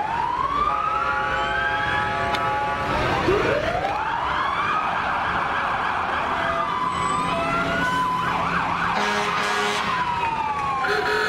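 Fire truck sirens sounding. A siren winds up twice in steep rising sweeps that level off into a held wail, with steady held tones between them and falling sweeps near the end.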